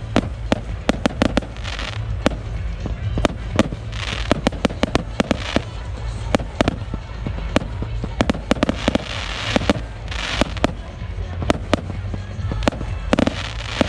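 Fireworks display going off: rapid sharp bangs of bursting shells, often several a second, with longer hissing stretches between them.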